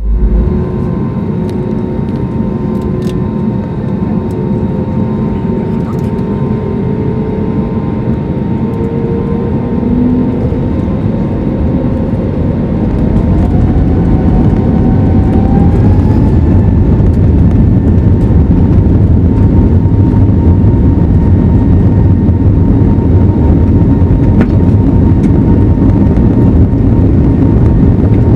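Airbus A320neo jet engines spooling up to takeoff power: a steady whine and deep rumble whose pitch rises over several seconds partway through, then holds loud and steady.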